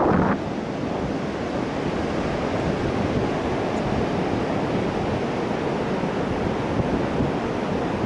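Steady rush of wind on the microphone mixed with the wash of ocean surf on an open sand beach.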